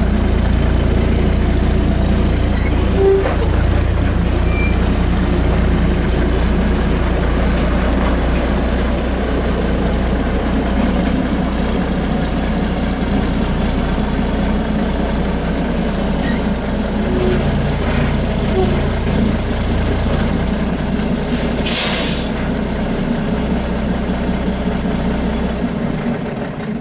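1982 American LaFrance CTC garbage truck's diesel engine running steadily as the truck reverses slowly. Near the end it lets out a short hiss of air as the air brakes are set with the truck parked.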